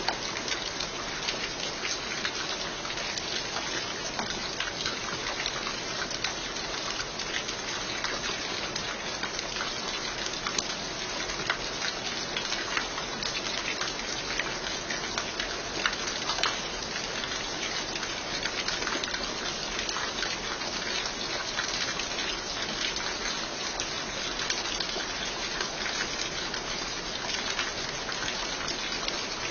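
Steady rain falling, with a continuous hiss and many fine drops ticking on surfaces.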